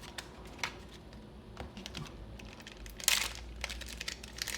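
Trading cards being handled, flicked and slid against each other in a run of small sharp clicks, with a brief crinkle of a booster pack wrapper about three seconds in.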